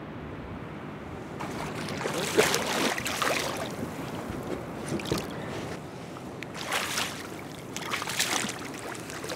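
Water splashing in several bursts as a hooked zander thrashes at the surface beside the boat.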